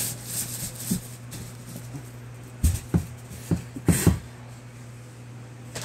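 A package being handled: several dull thumps and brief rustles, most of them about two and a half to four seconds in, over a steady low hum.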